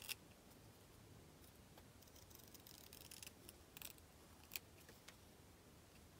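Small scissors snipping through fabric with a paper template stuck to it: a few faint, short snips, spaced irregularly, the sharpest about half a second in and again after about four and a half seconds.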